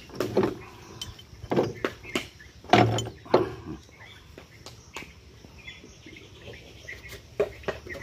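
Irregular knocks and clinks of steel gears and shafts being handled inside an opened power tiller gearbox, the heaviest knock about three seconds in.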